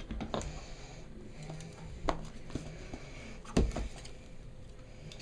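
Handling noises from unboxing on a table: a few short knocks and taps, the loudest about three and a half seconds in.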